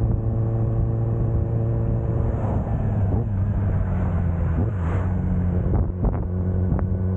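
Kawasaki ZX-10R's inline-four engine running at a steady cruise, with wind noise over it.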